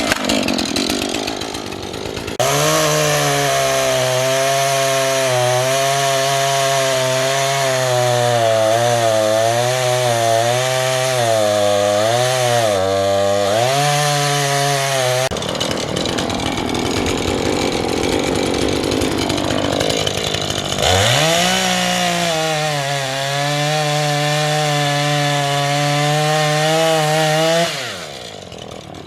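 Husqvarna 435 two-stroke chainsaw cutting arborvitae trunks and branches at full throttle, its pitch wavering as the chain bites and frees. It drops abruptly to a quieter running sound about halfway through, revs up again about 21 s in for another cut, and eases off near the end.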